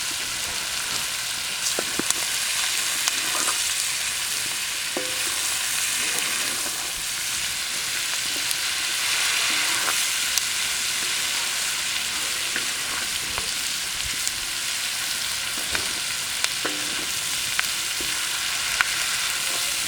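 Onions, small sausages and bacon strips frying on a plough disc over a wood fire: a steady sizzle with scattered small pops and crackles.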